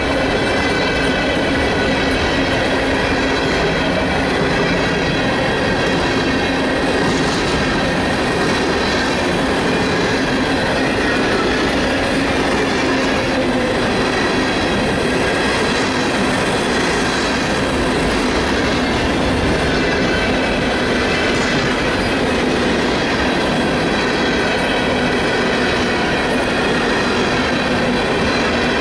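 Freight train of open-top hopper cars rolling steadily past, steel wheels rumbling on the rails with a steady high-pitched squeal from the wheels.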